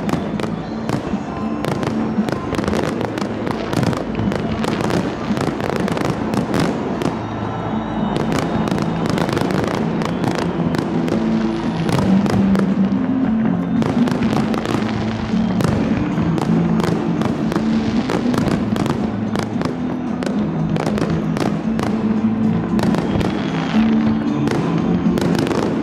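Aerial firework shells going off in a dense, irregular barrage of bangs and crackles, with music playing underneath.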